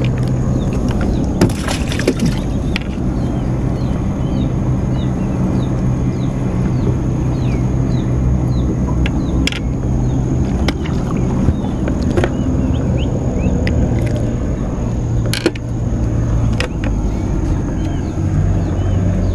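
A motor running steadily with a low hum, while a small bird chirps over and over and sharp clicks and knocks come now and then from fishing gear being handled in the boat.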